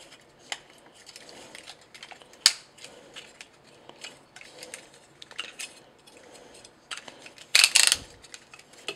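Plastic parts of a Fansproject Columpio transforming robot figure clicking as it is twisted and folded by hand: a run of small clicks, one sharp snap about two and a half seconds in, and a quick cluster of louder clicks near the end.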